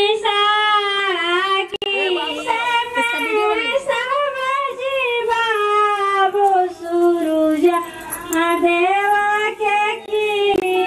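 High female singing voice holding long notes and sliding between them, with little else audible under it.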